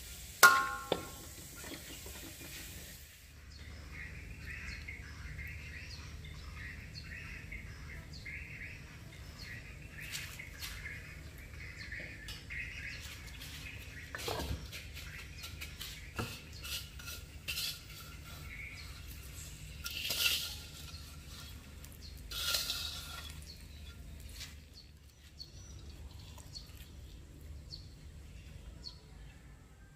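A spatula scraping and clanking in a wok as minced garlic fries, stopping after about three seconds. Then a steady low hum with birds chirping and scattered clinks of dishes and utensils.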